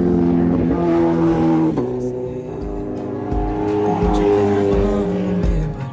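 Background music: held chords, with a steady low beat coming in about halfway through.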